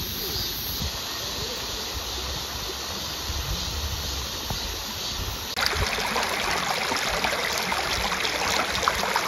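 Shallow stream running over rocks, a steady rush of water. It is softer at first, then louder and brighter from about five and a half seconds in.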